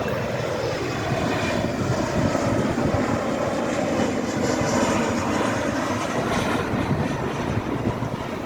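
American Eagle regional jet arriving, its jet engines making a loud, steady noise.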